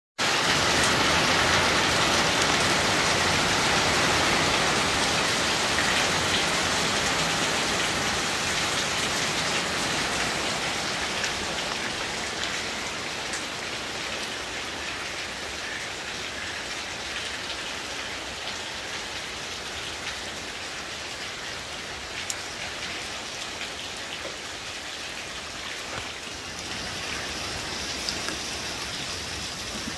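Rain falling steadily on a tiled patio and the lake surface, an even hiss with a few sharper drip ticks. It is loudest for the first ten seconds or so, then settles a little quieter.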